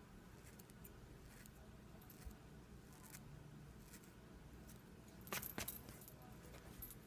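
Small scissors snipping faintly as they trim a tuft of caribou hair into shape, with a pair of louder metallic clicks about five and a half seconds in.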